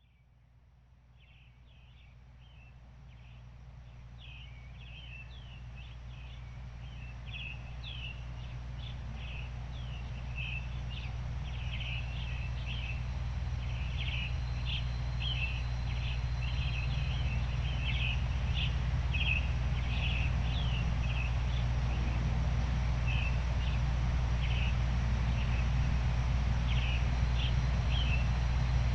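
Steady noise, heaviest in the low end, fading in over the first fifteen seconds or so, with small birds chirping and twittering over it in many short, quick calls.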